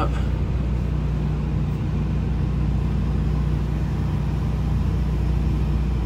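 Hitachi Zaxis 210-6 excavator's diesel engine running steadily, heard from inside the closed cab, while the boom hydraulics lift the bucket. It is a constant low hum with no change in pitch.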